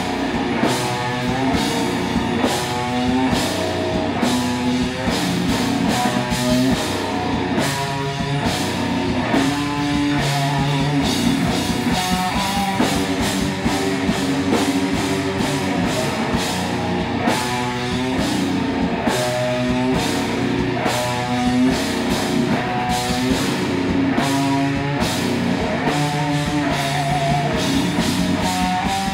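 Heavy rock band playing live: electric guitars, electric bass and a drum kit, loud and steady, with a guitar riff repeating about once a second over busy drumming.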